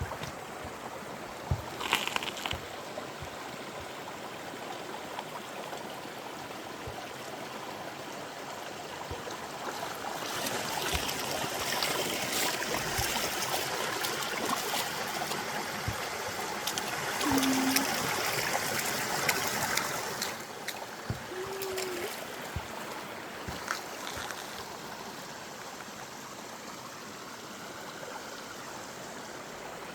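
Running water of a stream, trickling steadily, louder for about ten seconds in the middle.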